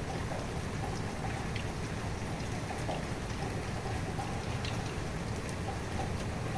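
Steady rain falling, with individual drops pattering on a surface as scattered sharp ticks over an even hiss and a low rumble.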